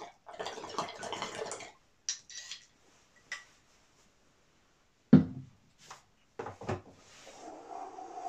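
Water bubbling in a glass bong as smoke is drawn through it, then a few clicks, a sharp thump about five seconds in and two lighter knocks, and near the end a long breathy exhale of smoke.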